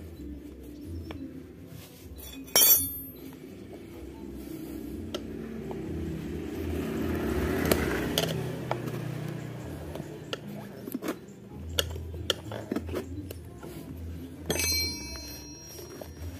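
Steel tyre levers clinking against a scooter's alloy rim as the deflated tyre's bead is pried off. There is a sharp ringing clink about three seconds in, another near the end, and smaller knocks and scraping in between.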